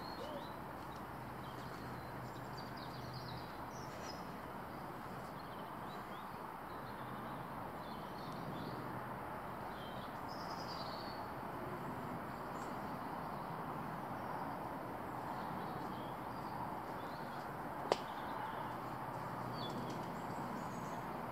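Small birds chirping faintly now and then over a steady hiss of outdoor background noise among trees. A single sharp click stands out about eighteen seconds in.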